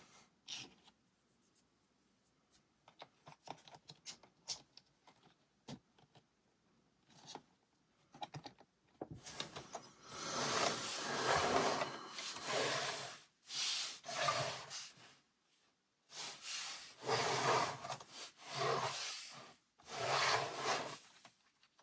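Hands handling plastic LEGO pieces: scattered small clicks, then a series of rubbing, scraping strokes about a second long each, with short pauses between them.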